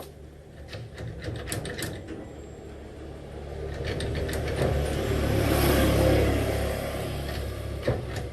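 An engine running, growing louder to a peak about six seconds in and then easing off, with scattered metallic clicks in the first couple of seconds.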